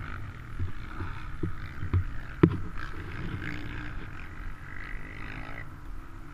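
Helmet-mounted action camera jostled as a rider moves around a fallen dirt bike: a few knocks and one sharp thump about two and a half seconds in, over a low steady rumble.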